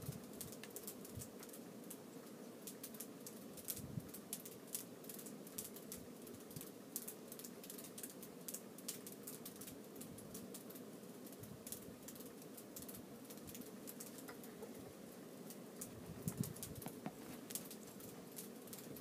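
Cocker spaniel puppy scrabbling and rooting in a fleece blanket: faint scratching and rustling with many small irregular clicks from claws and fabric, and a slightly louder knock about sixteen seconds in.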